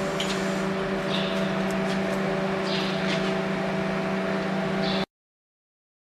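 Annealing furnace machinery running with a steady hum, a low tone with overtones, and a few short hisses. The sound cuts off about five seconds in.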